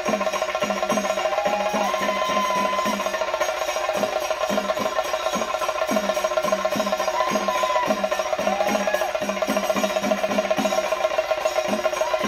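Theyyam ritual music: drums beaten in a quick, even rhythm, with a steady held pipe tone and short rising melodic phrases above them.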